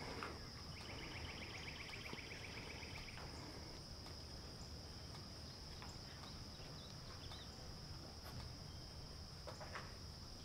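Quiet outdoor insect sound: a steady high-pitched drone, joined for about two seconds near the start by a rapid chirring trill.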